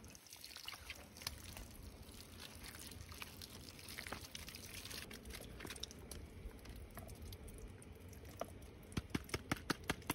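Rain pattering and dripping, scattered drops ticking, with a quick run of sharper ticks about nine seconds in.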